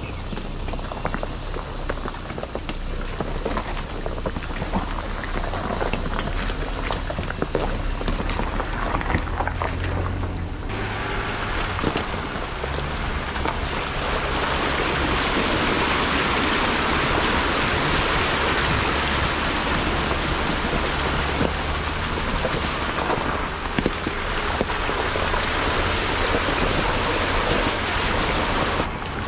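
Off-road vehicle engine running under a steady hiss of noise, with scattered clicks and knocks. About ten seconds in the sound changes abruptly and the hiss becomes louder.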